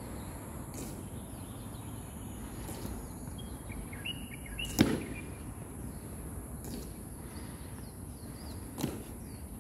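Honor guard's boots striking stone steps in unison during a slow ceremonial march: five sharp heel strikes about two seconds apart, the middle one the loudest. A steady high insect buzz and a few faint bird chirps run underneath.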